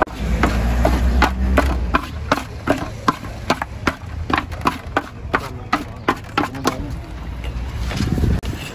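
Two wooden spatulas tossing sliced onions in a large hammered metal pan, knocking and scraping against the metal in quick, irregular clicks, several a second. A low rumble sits underneath for the first two seconds, and the clicking stops about seven seconds in.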